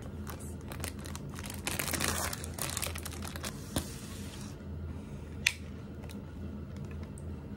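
Packaging crinkled by hand in a dense run of crackling for about two seconds, followed by two sharp clicks.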